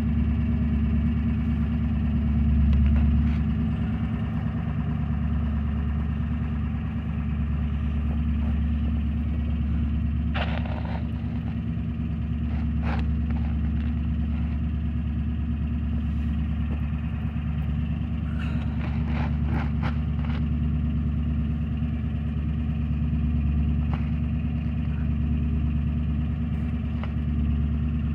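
Ford E-350's 7.3 Power Stroke V8 turbodiesel, fitted with a Holset HX50 turbo, hybrid injectors and a dual 5-inch exhaust, idling steadily, with a slight swell about three seconds in. A few brief clicks sound over it in the second half.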